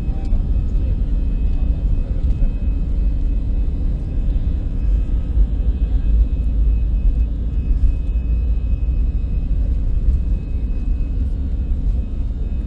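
Steady low rumble inside a jet airliner's cabin as it rolls along the runway: engine noise and wheel rumble heard from a seat beside the engine.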